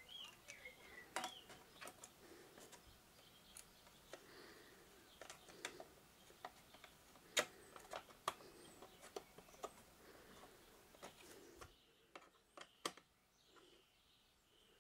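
Faint, scattered clicks and taps of a small circuit board being seated in a soup maker's plastic housing and screwed down with a screwdriver.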